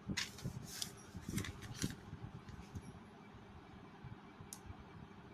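Paper rustling and soft handling noises as notebook pages are turned, a handful of short rustles in the first two seconds, then quieter with one more brief rustle about four and a half seconds in.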